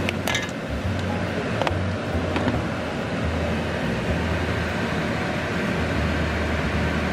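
Kitchen exhaust fan running steadily over a gas stove: an even rushing noise with a low hum. A few light clicks come in the first couple of seconds.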